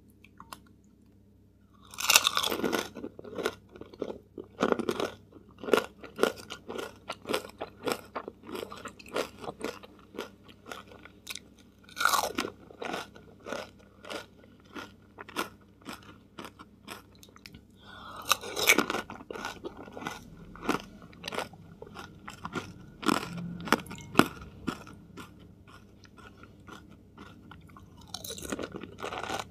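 Close-miked crunching and chewing of whole pani puri: four bites, each a loud crack of the crisp fried shell filled with mint water, followed by a run of wet, clicky chewing. The first bite comes about two seconds in and the last just before the end.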